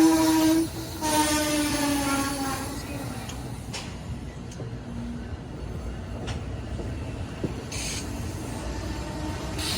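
Amtrak locomotive air horn: one blast cutting off just under a second in, then a second blast of nearly two seconds that sags slightly in pitch as it fades. After it comes the train's steady low rumble with a few faint clicks, and the horn starts sounding again at the very end.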